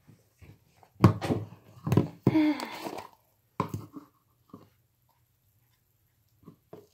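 A few sharp knocks and handling sounds, with a short stretch of rustling, then near silence for a couple of seconds.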